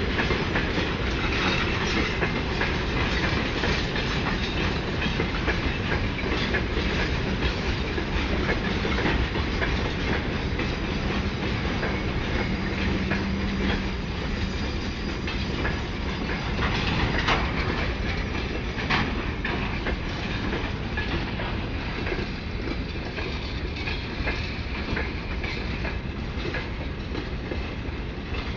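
Freight train wagons rolling past with a steady rumble, their wheels clicking over the rail joints, with a couple of sharper knocks about two-thirds of the way through.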